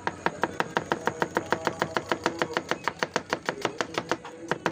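Kitchen knife slicing a red onion on a cutting board in quick, even strokes, about seven a second, each a sharp tap of the blade on the board, with a brief pause near the end.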